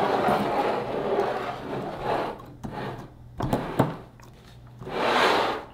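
Rustling and scraping handling noise, with a few sharp knocks about the middle and a short swell of rustling near the end.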